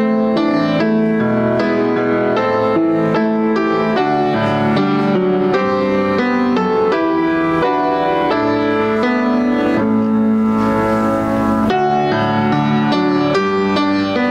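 Piano playing a continuous run of notes.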